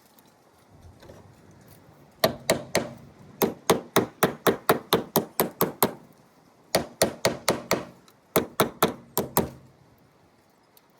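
Hammer tapping a new battery cable terminal down onto the battery post: two runs of quick, sharp taps, about four a second, with a short pause between them.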